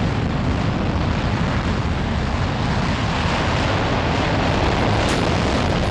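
Zenit-3SL rocket engines at liftoff: a loud, steady rumble with a dense low end and an even hiss above.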